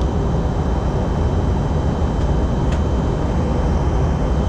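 Airliner cabin noise in flight during the descent: a steady rush of engine and airflow, heaviest in the low range, with a faint brief blip near the middle.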